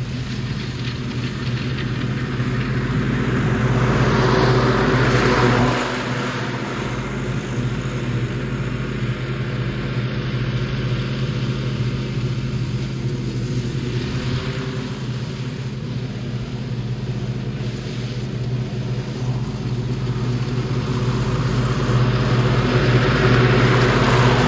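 Zero-turn riding mower's engine running steadily under load, getting louder as the mower comes up close near the end.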